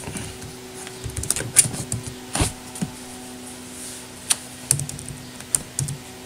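Computer keyboard keys being typed in short, irregular runs and single clicks.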